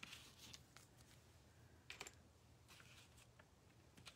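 Faint, light clicks and taps of small laser-cut wooden pieces being handled and set down on a tabletop, over near silence.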